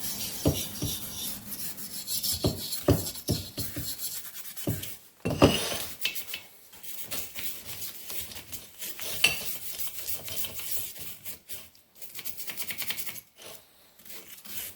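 Brush scrubbing a Volkswagen Type 1 cylinder head in gasoline: irregular, rapid scratchy rasping, broken by several sharp knocks, the loudest about five and a half seconds in.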